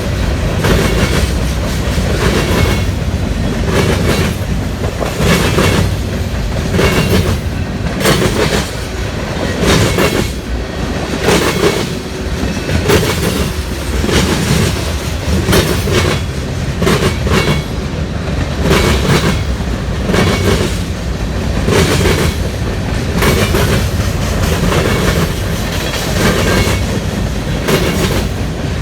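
Railroad cars of a passing freight train rolling by close up: a steady rumble with a continual, regular clack of wheels over rail joints.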